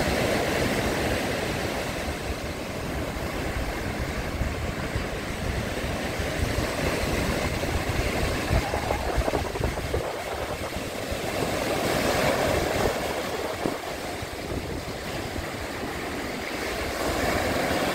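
Sea waves breaking on a stony beach and washing back, a steady surf noise that swells and eases every few seconds.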